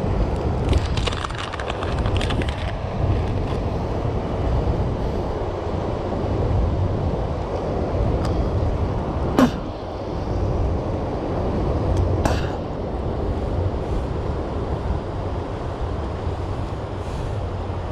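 Steady rush and rumble of churning water released through a dam's generators, with wind on the microphone. Two sharp clicks are heard partway through, the first about halfway in and the second about three seconds later.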